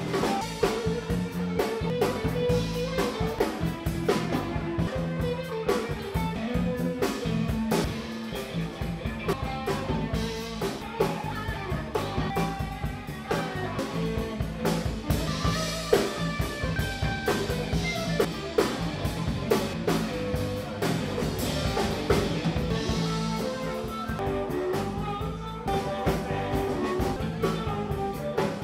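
Background music: a blues-style band with guitar and a steady drum beat.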